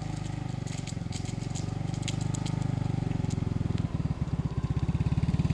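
Small automatic motor scooter engine running at low speed as it rides toward the listener: a steady fast putter that gets louder from about four seconds in.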